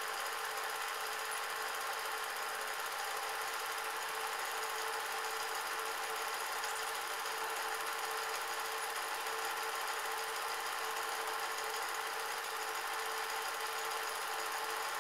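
Film projector running with a steady mechanical whirr, with no other sound over it.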